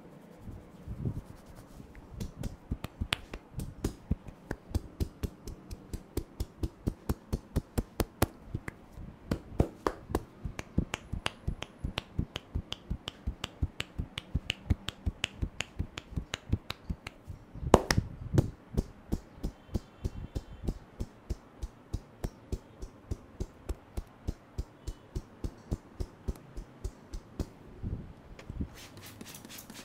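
Head massage percussion: a barber's hands striking the head in a quick, even run of sharp claps or slaps, about three to four a second, with one louder crack partway through.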